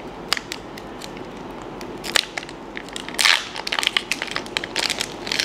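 Foil wrapper of a Pokémon TCG booster pack being torn open by hand: scattered crinkly crackles, with a louder burst of crinkling and tearing about three seconds in.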